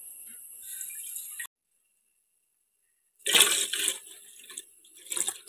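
Milk poured from one aluminium pot into another, splashing. One loud gush comes about three seconds in and tails off, and a shorter splash follows near the end.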